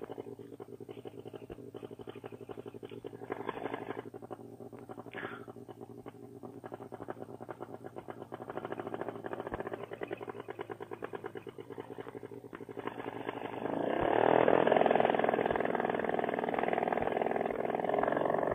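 Paramotor trike's engine and propeller idling with a steady pulsing beat, then throttled up about thirteen seconds in and running much louder.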